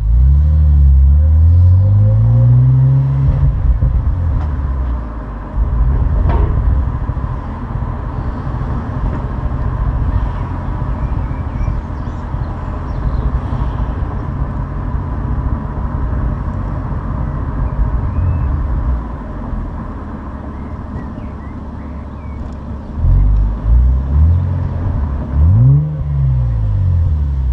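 Opel Insignia OPC's turbocharged V6 with its stock exhaust. It accelerates with the pitch rising over the first few seconds, then runs steadily, and near the end it goes through several quick rises and falls in revs.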